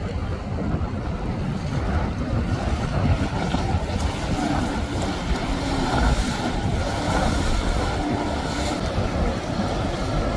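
Outboard motorboat running fast through choppy water: a steady engine drone under the rush and splash of spray. The splash grows louder about six seconds in as the hull slams through a wave. Wind rumbles on the microphone throughout.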